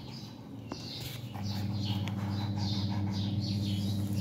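Small birds chirping in quick, repeated high calls. About a second in, a steady low motor hum starts and becomes the loudest sound.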